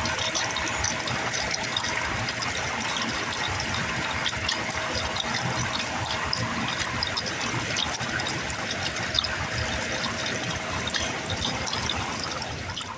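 Rainwater pouring steadily out of a gutter, with quiet gurgling and bubbling layered over it to sound like a rushing river, full of small splashes and drips.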